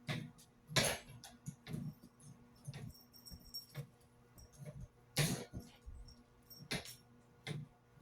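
Fidget spinners being batted around by a kitten, knocking and clattering against a hard surface in irregular bursts, the loudest knocks about a second in, about five seconds in and near seven seconds. Faint high thin tones come in between the knocks.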